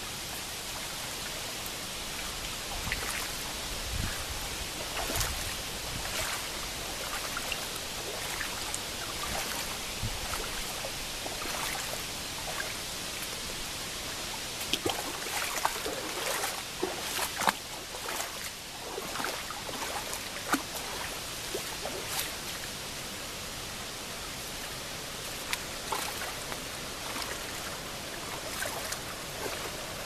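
Shallow sand-bottomed feeder creek running and trickling around fallen logs: a steady rush of water with many small splashes and ticks, thickest through the middle.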